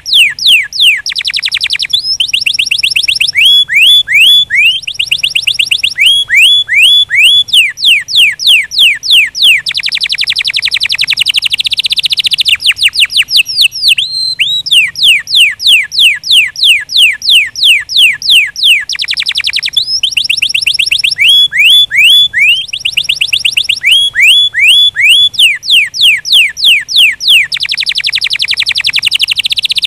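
Domestic canary singing a long unbroken song: fast runs of high, downward-sweeping notes, several a second, alternating with rapid rolling trills.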